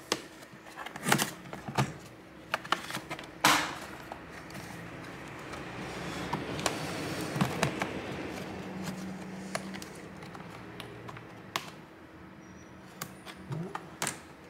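Hands and a plastic pry tool working at a laptop's plastic bottom cover: sharp clicks and knocks at first, a longer stretch of rubbing and scraping in the middle as the laptop is turned and pried, then more small clicks near the end.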